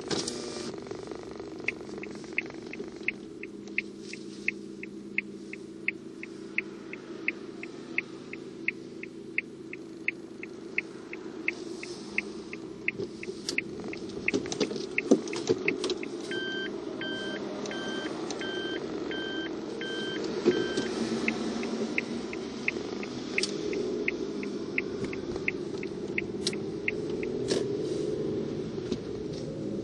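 A car's turn-signal indicator ticking steadily, about three ticks a second, over the engine and road noise heard from inside the cabin. The ticking stops near the end. About halfway through, a short run of electronic two-tone beeps sounds for a few seconds.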